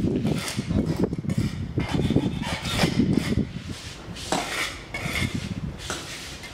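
A hand tool scraping along the joints between floor tiles, cleaning out dirt and loose mortar before grouting: a run of irregular, rough strokes that get quieter near the end.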